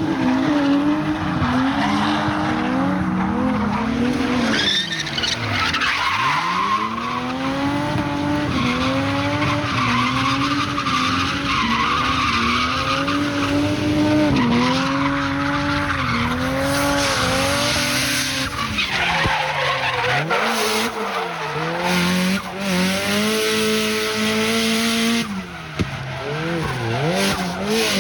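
Drift car's engine revving up and down again and again as the throttle is worked, with tyres squealing and skidding through the slide.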